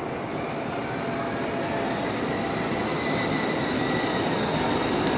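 Battery-powered children's ride-on toy car driving along: its electric motor and gearbox whirring as the wheels roll on the smooth floor, a steady noisy rumble with a faint high whine that slowly grows louder.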